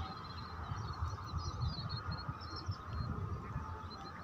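Outdoor ambience: low, uneven rumble on the microphone under a steady high hum, with faint bird chirps in the first half.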